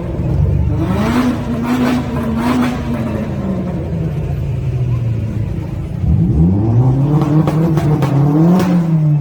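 A modified car's engine revving: the pitch climbs and holds, sinks back, then rises sharply again about six seconds in and drops away near the end.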